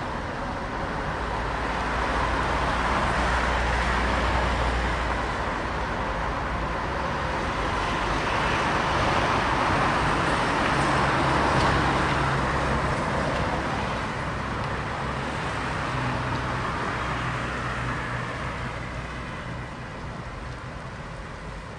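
City street traffic: cars and other road vehicles pass by in a continuous wash of engine and tyre noise. It swells twice as vehicles go past, with a low engine hum underneath, then eases off near the end.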